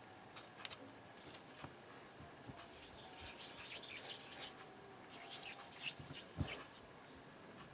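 Faint rubbing and scraping with a few light clicks and taps: hands handling small pieces of modelling clay and the little gumball-machine model.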